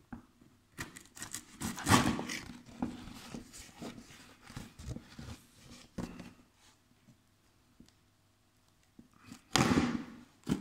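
Cardboard box being handled and opened by hand: irregular scraping, rustling and knocks, loudest about two seconds in. A near-quiet pause follows, then another loud burst of handling near the end.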